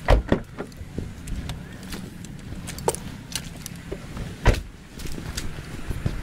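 A car door shut with a heavy thump near the start, followed by scattered light knocks and clicks of gear being carried, and a second loud thump about four and a half seconds in.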